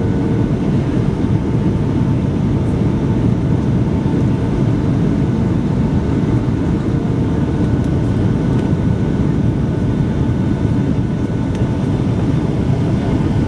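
Cabin noise of a Boeing 757-200 on short final, seconds before touchdown: a steady low rush of engine and airflow noise with flaps and landing gear extended, heard through the cabin wall at a window seat over the wing.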